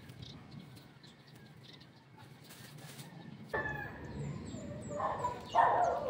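Chickens calling, with the loudest call near the end, over the high chirps of small birds. The sound level jumps abruptly about three and a half seconds in.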